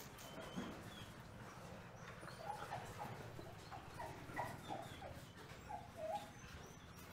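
Belgian Malinois puppies whimpering faintly: a string of short, high squeaks from about two and a half seconds in until about six seconds.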